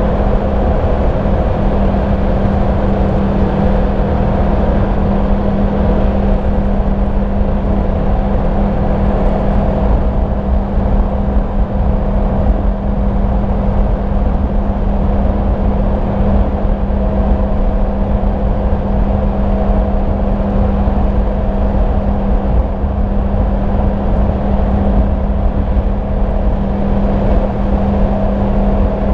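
Yamaha MT-10 SP's crossplane inline-four running at a steady cruise through its stock exhaust, holding one even note, with wind rush over the microphone.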